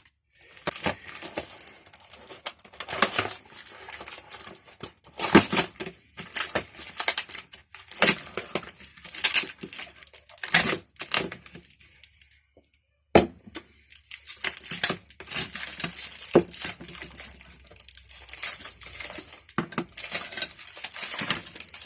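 Packaging crinkling and rustling in irregular bursts as it is handled and opened, with a short pause and a single sharp click about halfway through.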